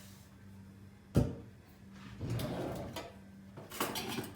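Kitchenware being handled on a counter: one sharp knock about a second in, then scraping and a few clicks near the end.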